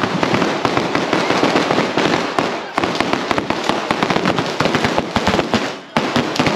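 Spark-spraying fireworks showering sparks close by, with a continuous hiss and rapid, dense crackling pops. The noise dips briefly near the end and then picks up again.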